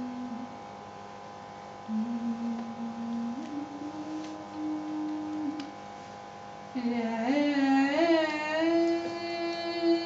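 A woman singing a slow khayal alap phrase over a steady drone, holding notes and gliding smoothly from one note to the next: the soft approach to the notes of the Delhi gharana. The voice is soft at first; about seven seconds in it opens up, louder, with wavering ornaments on the glides.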